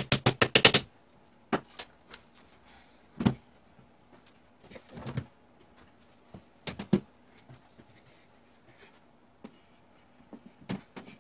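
Wooden mallet tapping a joint of a wooden chair frame, about eight quick taps in under a second, followed by scattered single wooden knocks and clunks as the chair's frame parts are handled and fitted together.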